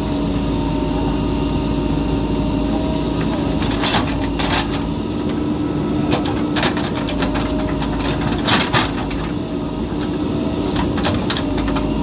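JCB backhoe loader's diesel engine running steadily while the backhoe arm digs, with scattered sharp knocks and clatters from the bucket working into the ground.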